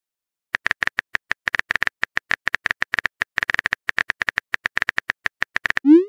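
Rapid, slightly uneven keyboard-typing clicks, about ten a second: the typing sound effect of a texting-story app while the next message is composed. A short rising swoop comes in right at the end.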